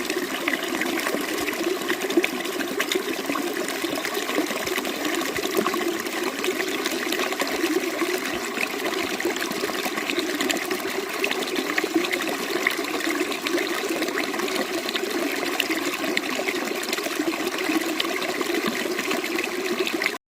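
Running water, flowing and splashing steadily without pause.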